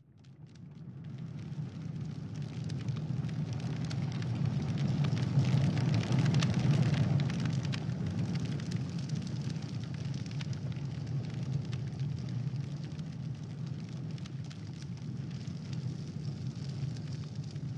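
A large fire burning: a steady rushing with dense crackling. It swells up over the first couple of seconds, is loudest around six seconds in, then settles.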